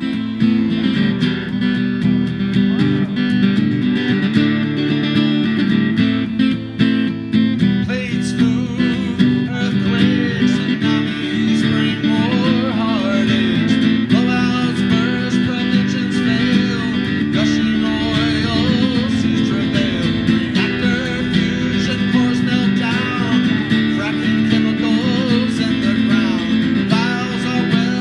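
Acoustic guitar strummed steadily. A man's voice starts singing along about eight seconds in.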